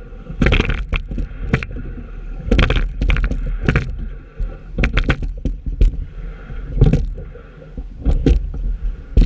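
Racing single scull being rowed at a steady rate: oars knocking in the oarlocks and the boat's fittings clattering in a cluster about every two seconds, once per stroke, over a constant low rumble.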